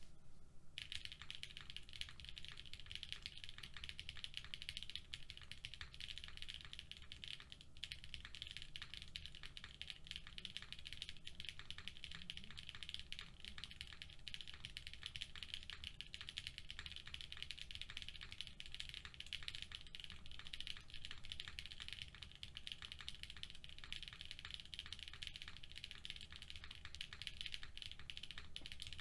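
Rapid, continuous typing on a custom mechanical keyboard, a Hoshizora board with Durock POM switches on a half plate and GMK keycaps, dense keystrokes at about 169 words per minute. The typing starts about a second in and barely pauses.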